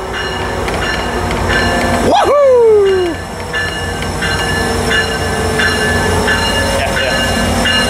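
Amtrak F59PHI diesel locomotive rolling slowly into a station, its bell ringing about twice a second over the low rumble of the engine. About two seconds in there is one loud squeal that jumps up and then slides down in pitch.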